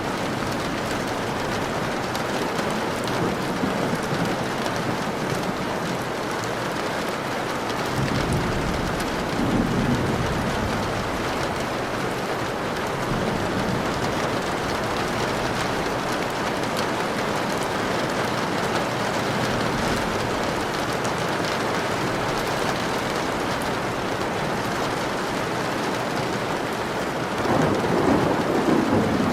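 Steady heavy rain with rolls of thunder: one rumble about eight seconds in that lasts a few seconds, and another building near the end.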